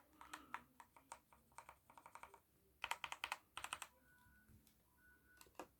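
Keys of a Performax-G Xargon mechanical keyboard with Outemu red (linear) switches being typed on in quick runs. The keystrokes make only quiet, soft clacks, the low noise these switches are chosen for.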